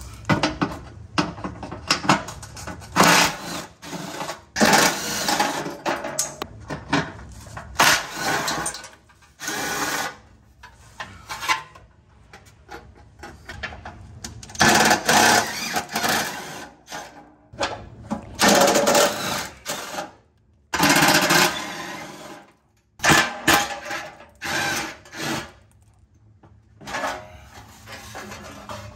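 Cordless power driver spinning 10 mm bolts out of a car's underbody heat shield, running in many short bursts with pauses between them.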